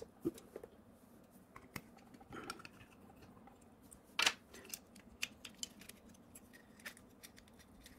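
Scattered small clicks and taps of a screwdriver and the metal parts of a Snapmaker 2.0 3D printing module being handled during disassembly, with one louder knock about four seconds in.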